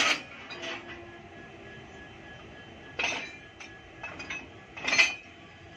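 WAG-9HC electric locomotive rolling slowly over the rails, with a handful of short, sharp metallic clinks and squeaks from its wheels and running gear, the loudest near the end.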